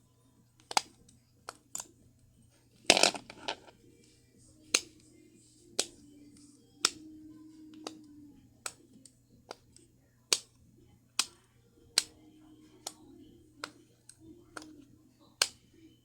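A string of short, sharp clicks at irregular spacing, roughly one a second, with a louder cluster about three seconds in.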